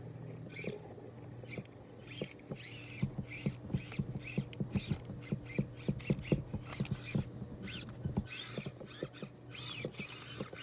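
Axial SCX24 RC crawler's small brushed motor and gears whirring in short high bursts as the throttle is blipped, with a run of quick plastic clicks and knocks from the truck clambering and tipping over logs and rocks, densest between about three and eight seconds in.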